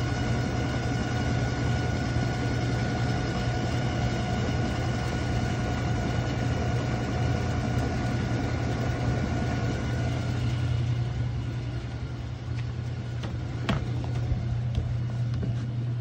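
Old Whirlpool top-load washer with an agitator running: a steady low motor hum with a rattling, grinding noise, which the owner suspects comes from the pump. The higher whine fades about ten seconds in, and a single sharp knock comes near the end.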